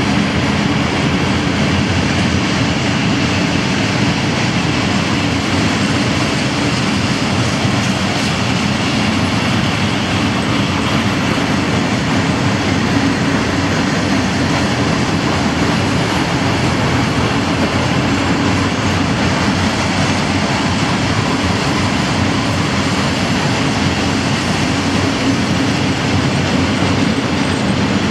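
Freight train of pear-shaped cement hopper wagons rolling past, a loud, steady noise of wheels on rails that goes on without a break.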